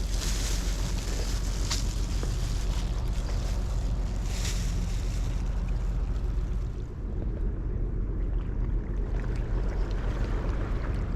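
Wind buffeting the microphone as a steady low rumble with hiss, with a few brief rustles in the first half; the hiss thins out after about six and a half seconds.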